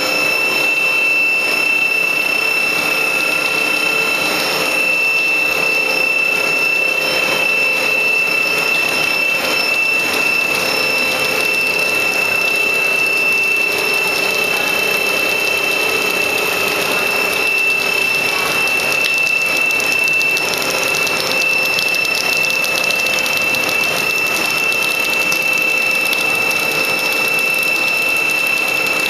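Plastic sheet-making machine running steadily: a constant high-pitched whine over even mechanical noise.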